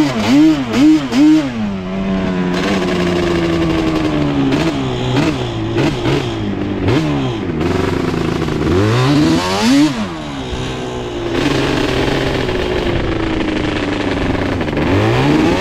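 1990 Yamaha Banshee's twin-cylinder two-stroke engine revving under a rider. It gives three quick throttle blips at the start, then a slowly falling drone. It revs up and back down again about nine seconds in, and rises once more near the end.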